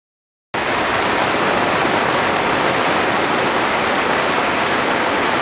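Heavy rain pouring down in a loud, steady hiss. It cuts in abruptly about half a second in, after dead silence.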